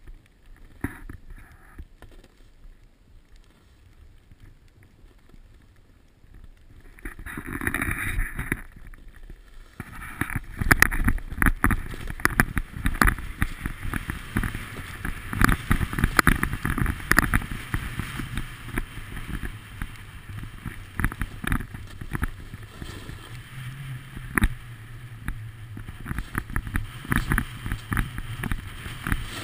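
Riding fast down a packed snow slope: edges scraping and chattering over the snow, with wind rumbling on the microphone. Quiet at first, it gets much louder about seven seconds in as speed picks up, and stays rough and irregular.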